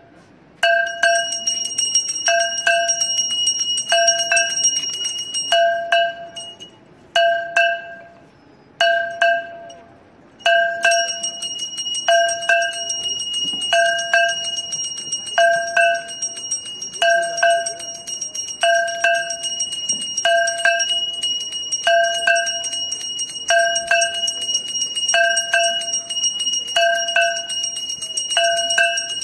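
Temple bells rung for aarti. A deeper bell is struck steadily about once a second, while a small hand bell rings continuously over it with a high, shimmering tone. The hand bell falls silent twice in the first half, then rings without a break.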